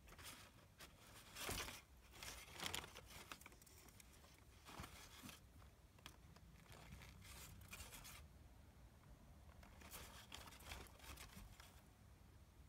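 Crumpled packing paper in a cardboard box rustling and crinkling faintly under a cat moving about on it, in irregular bursts, the loudest about one and a half and three seconds in.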